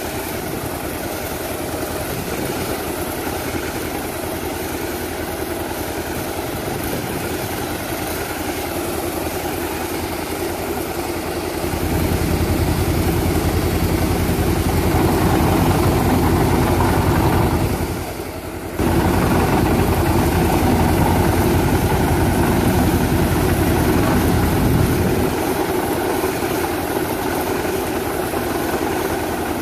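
Engine running steadily to drive an agricultural sprayer's high-pressure pump, with the hiss of its nozzles jetting water. About halfway through it turns louder and heavier, cuts out for under a second, then runs on heavy before easing back near the end.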